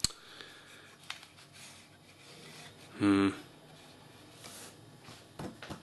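Plastic tank base rubbing and shifting on a countertop under the hands, with a click at the start and one short, loud pitched sound about three seconds in.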